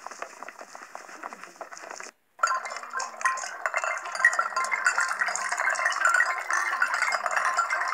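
Biscuits falling onto china teacups and saucers: a dense, continuous clinking and rattling of china, starting suddenly after a short drop-out about two seconds in. Before that, a quieter pattering.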